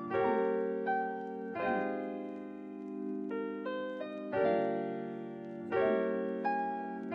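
Background music: soft piano chords struck about every second and a half, each held and fading, with single melody notes between.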